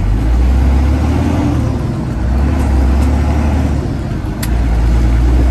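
Semi truck's diesel engine and road noise heard inside the cab of a Freightliner Classic XL, a steady low drone. The drone dips briefly about four seconds in, with a single short click.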